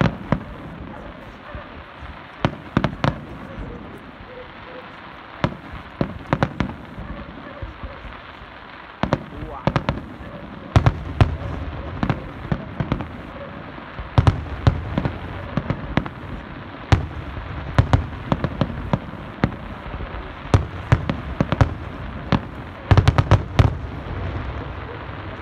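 Aerial fireworks display: shells bursting in an irregular string of sharp bangs and cracks, with heavier, deeper bursts from about halfway through and a dense cluster of bangs near the end.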